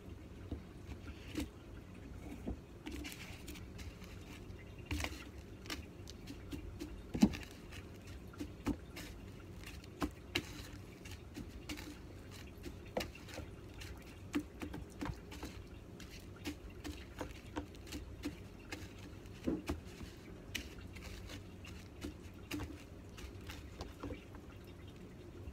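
Irregular soft taps, clicks and crumbly rustles of hands pressing pork chops into breadcrumbs in a plastic tub and setting them in a steel bowl, with one sharper knock about seven seconds in.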